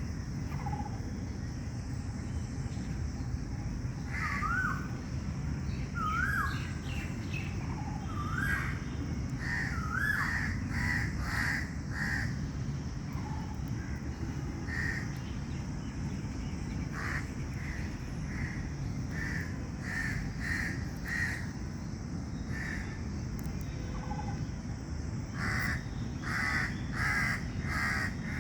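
Crows cawing in repeated runs of short harsh calls, joined in the first half by a few wavering whistled calls from another bird, over steady background noise.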